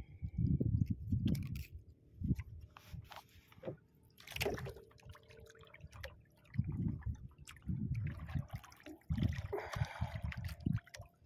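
Sea water slapping and sloshing against the side of a small boat in irregular low splashes, with a few small knocks.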